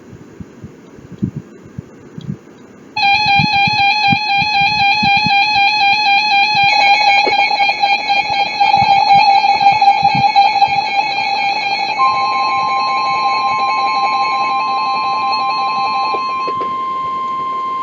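Emergency weather alert tones for a severe thunderstorm warning. A loud warbling electronic alarm starts about three seconds in and thickens a few seconds later. About twelve seconds in a steady single-pitch tone joins it, the NOAA Weather Radio warning alarm tone.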